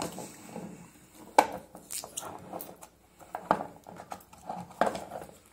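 Hard plastic instrument cases being opened and handled: about four sharp plastic clicks and knocks, the loudest about a second and a half in, with light rattling and rubbing between them.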